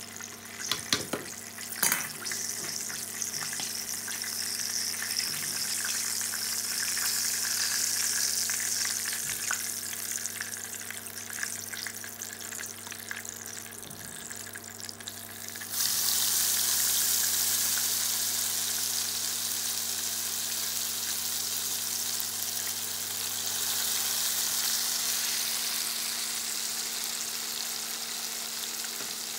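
Besan-battered rohu fish pieces sizzling in hot mustard oil in a wok. The oil hisses steadily, then the sizzle jumps suddenly louder a little past halfway, as battered pieces go into the oil, and stays loud. There are a few knocks near the start and a faint steady hum underneath.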